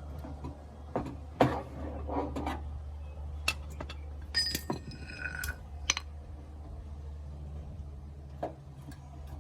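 Scattered metallic clinks and knocks from hand tools working a damaged car body panel, with a few short ringing squeaks about halfway through, over a steady low hum.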